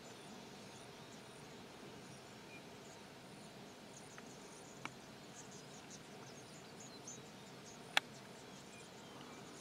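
Faint outdoor ambience with insects chirping high and thin, and two sharp clicks, about five and eight seconds in, the second louder.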